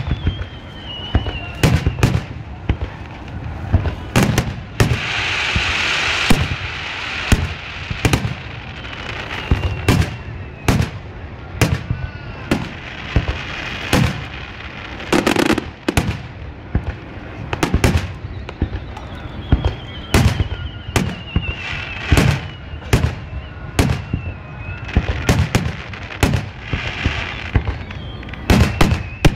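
Aerial firework shells bursting in quick, irregular succession, a steady series of booms about one or two a second. A hissing crackle rises between the booms around five to six seconds in.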